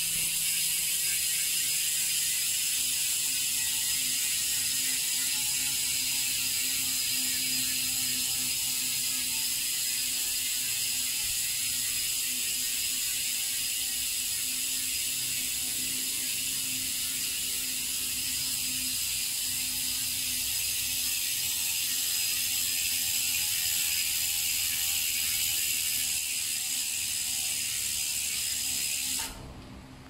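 Speedone Torpedo rear hub freewheeling on a freely spinning mountain bike wheel: the pawls make a fast, steady ratcheting buzz that slowly falls in pitch as the wheel coasts down. It cuts off near the end.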